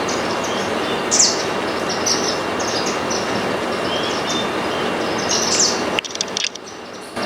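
Small munias chirping in many quick, short, high notes over a loud, steady rushing noise. The noise drops away abruptly about six seconds in and comes back near the end.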